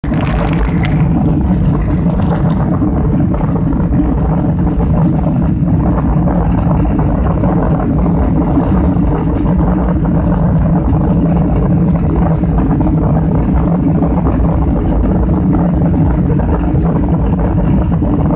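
Steady loud engine and cabin noise of an airliner, heard from inside the cabin as it rolls along the runway, with a deep rumble and a faint steady hum.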